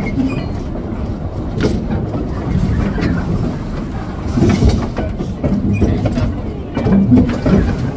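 Small steam locomotive running along the track: a steady rumble and rattle of wheels and running gear on the rails, with scattered sharp clicks and clacks.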